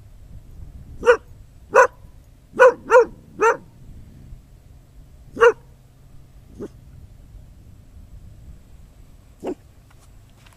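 A dog barking in short, sharp single barks. Five come in a quick irregular run in the first few seconds, then single barks spaced out, with one near the end.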